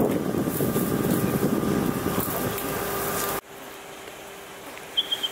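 A vehicle engine running steadily under a rush of wind noise on the microphone. About three and a half seconds in, the sound drops much quieter, leaving the engine's steady hum, with a few small clicks near the end.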